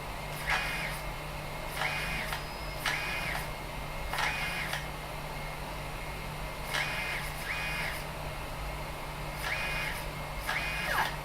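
BIQU delta 3D printer's extruder stepper motor pushing PLA filament through the heated hot end in a series of short moves. Each move is a half-second whine that rises, holds and falls in pitch, about nine of them one to two seconds apart, over a steady low hum.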